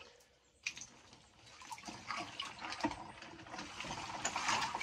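Arm moving through icy water in a chest freezer packed with broken ice: water sloshing, with many small knocks of ice chunks against each other, starting about half a second in and slowly growing louder.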